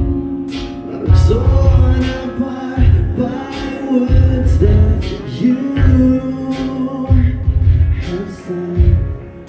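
A live rock band: a male singer sings over electric guitar, bass and drums. Heavy low drum and bass hits land about once a second, with cymbal strokes.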